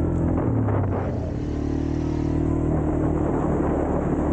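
ATV engine running steadily while riding, its note shifting a little in pitch with the throttle.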